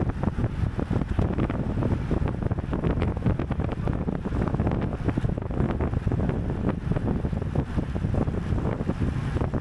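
Heavy wind buffeting the microphone of a rider's camera at racing speed in a bicycle criterium: a dense, steady low rumble with scattered faint ticks and rattles.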